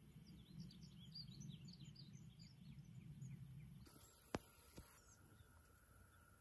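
Quiet outdoor ambience with a bird chirping rapidly, many short notes, through the first three seconds, and a single sharp click about four seconds in.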